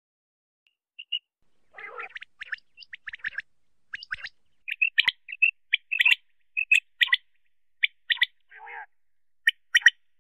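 Common quail calling: short, sharp high notes, loudest from about halfway in, often in quick groups of two or three like the male's 'wet-my-lips' song. There are a few rougher, raspier sounds around two seconds in.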